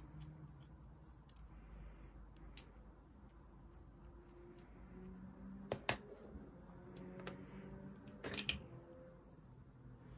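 Small metal and plastic parts of an AAP-01 airsoft pistol being handled with a hex key: scattered light clicks and taps, the loudest a pair of sharp clicks about six seconds in and a quick run of clicks a little after eight seconds.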